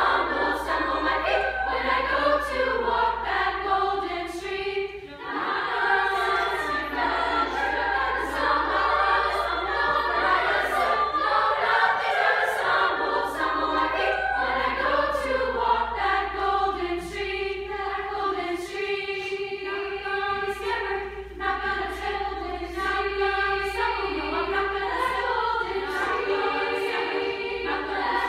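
Women's chorus singing together in parts.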